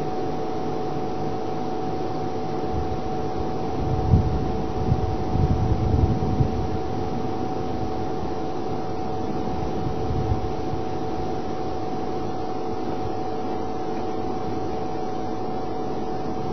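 A steady mechanical hum and hiss with two faint held tones, broken by a few brief low rumbles about four to six seconds in.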